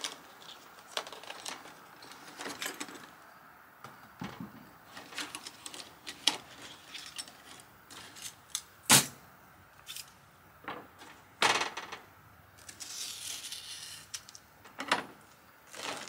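Cooking gear and food being handled: scattered clicks and knocks with a sharp knock about nine seconds in, and a stretch of rustling around thirteen seconds.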